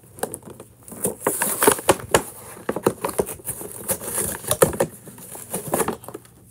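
Cardboard backing and plastic blister of a toy monster truck two-pack being pulled and peeled apart by hand, with irregular crackles, crinkles and small rips.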